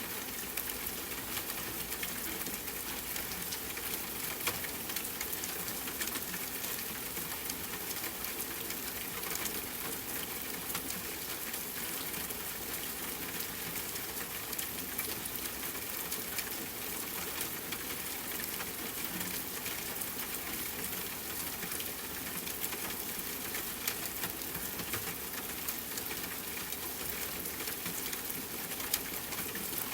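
Steady soft rain mixed with a crackling wood fire, with small pops and snaps scattered over the even hiss of the rain.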